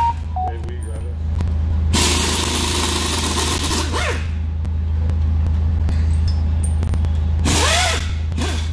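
Workshop noise: a steady low machine hum, with two loud hissing bursts of a second or two each, the first about two seconds in and the second near the end.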